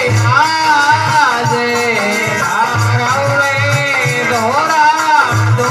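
Instrumental passage of a Rajasthani devotional bhajan: a melody line sliding up and down in pitch over a steady low drum beat, with a shaker-like rattle.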